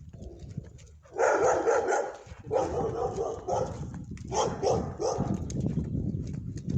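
A dog barking in three quick flurries of barks.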